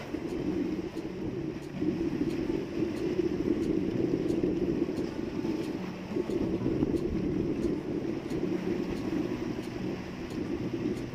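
Outrigger fishing boat's engine running steadily under way, a low drone.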